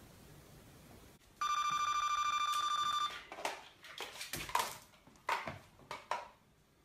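An electronic ring tone sounds steadily for about a second and a half, then stops. A string of four or five short, sharp calls follows.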